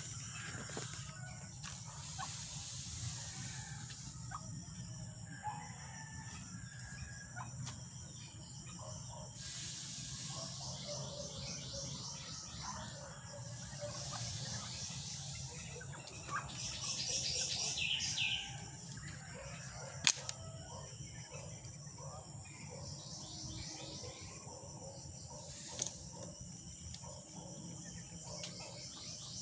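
Outdoor rural ambience: a steady high insect drone under birds chirping, with a louder burst of rapid bird trilling just past the middle. A couple of sharp clicks follow.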